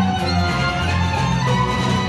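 Gadulka, the Bulgarian bowed folk fiddle, playing a melody with a chamber string orchestra accompanying it, low strings holding bass notes underneath.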